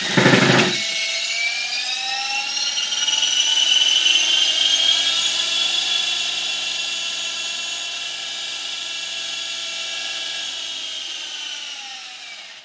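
Small model helicopter's motor and rotor whining under power, with a brief loud rattle at the start as it shakes on the platform. The whine rises in pitch over the first few seconds, then slowly falls and fades, and stops near the end.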